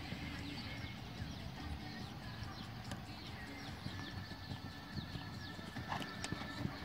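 Horse's hoofbeats on a sand dressage arena as it goes past at a working gait.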